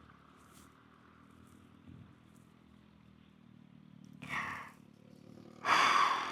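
A motor vehicle's engine running with a faint steady hum, then a loud burst of engine and road noise near the end as a vehicle comes close.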